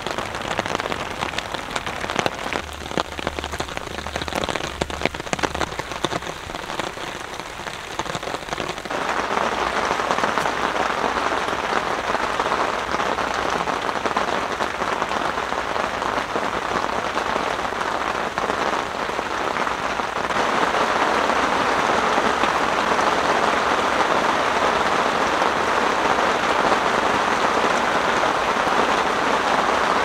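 Rain falling on a Herzen Amazon shelter tent. For the first several seconds separate drops tap on the tent; about a third of the way in it becomes a dense, steady patter, which steps louder about two-thirds of the way through.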